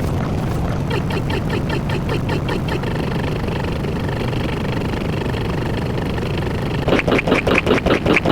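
An engine-like rumble with a fast, even pulsing. About seven seconds in, it turns much louder, with sharper rapid pulses.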